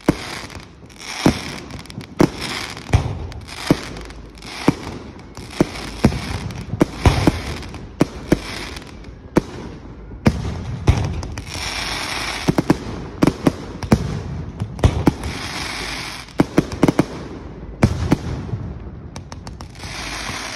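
Display fireworks going off in a steady barrage: sharp bangs of bursting shells every second or so, with a noisy crackle between them that is thickest about halfway through.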